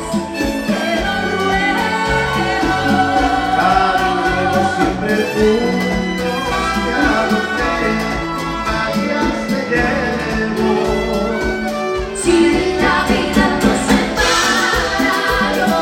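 A live dance band playing, recorded from the audience. The band's sound grows fuller and brighter about three-quarters of the way in.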